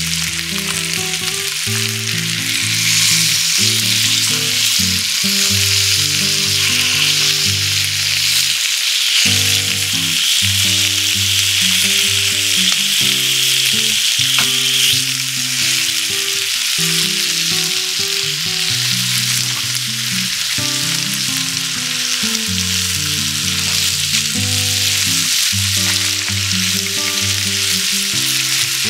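Chicken pieces sizzling and frying in oil in a small square cast-iron pan over a charcoal fire, a steady dense hiss. Soft background music of held low notes plays underneath.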